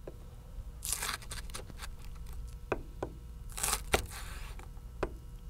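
A chef's knife slicing green onion lengthwise on a plastic cutting board: quiet, irregular taps of the blade on the board with soft crisp cutting sounds between them.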